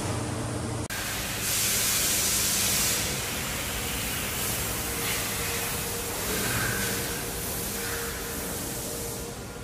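A low machine hum that stops abruptly under a second in, then a steady hiss of background noise in a large factory hall, swelling louder for a moment about two seconds in.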